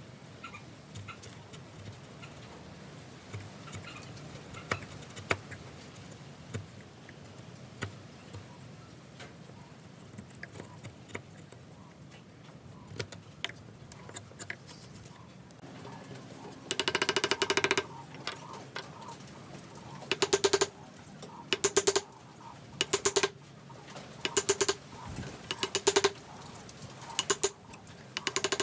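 Steel wood chisel cutting into a timber joint. Faint scattered clicks of paring come first, then, from about halfway, a string of loud short bursts of rapid rattling taps, one every second or so, as the chisel is driven down into a mortise.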